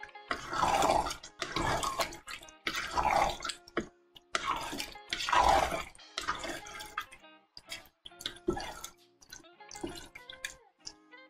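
Wooden spatula stirring a thick chicken and bean stew in a large nonstick pot: a run of wet stirring strokes, roughly one every second or so.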